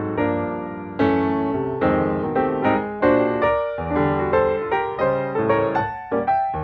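Background piano music: a steady stream of struck notes and chords, each starting sharply and fading away.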